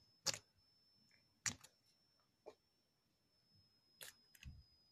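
Hardened slime being handled: a handful of short, sharp clicks spaced out over near silence, with a faint steady high whine underneath.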